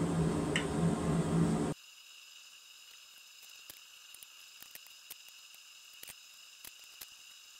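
A steady rushing noise with a low hum cuts off abruptly after about two seconds. What follows is quiet, with scattered faint ticks and crackles as boiled linseed oil is rubbed with a rag onto the hot steel poker.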